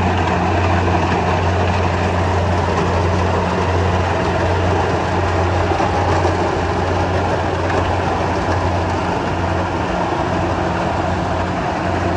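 Kubota DC70 rice combine harvester running steadily while harvesting: a constant low engine drone with the broad rushing clatter of the cutting and threshing machinery over it.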